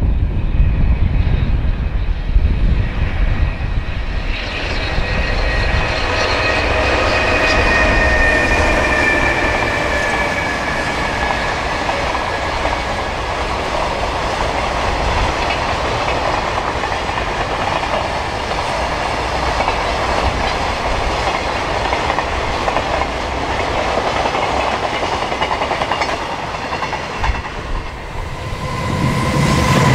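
JR Freight EH500 electric locomotive and its container wagons rolling past, wheels clattering on the rails. A high whine falls slightly in pitch a few seconds in as the locomotive goes by. The wagon noise runs steadily and fades near the end as the train passes.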